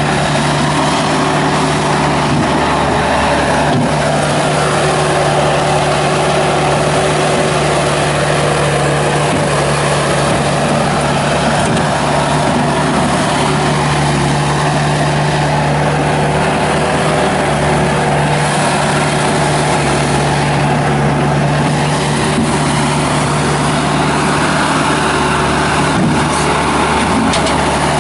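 Bobcat S250 skid steer loader's Kubota turbo diesel engine running steadily at an even speed.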